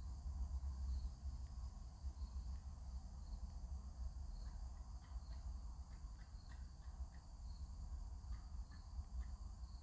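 Faint background noise: a steady low hum with thin, steady high-pitched ringing and a few scattered faint ticks.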